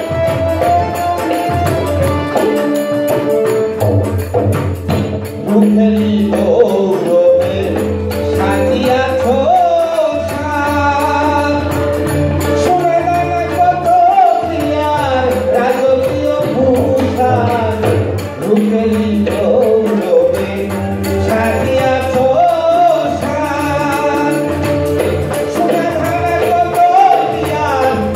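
Live Bengali Baul folk song: a man sings into a microphone over a steady dhol drum beat and harmonium.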